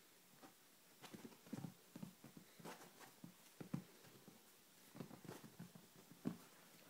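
Soft, irregular thumps and scuffs of a kitten pouncing and scrabbling on a quilted blanket as it wrestles with a hand, with a couple of sharper taps among them.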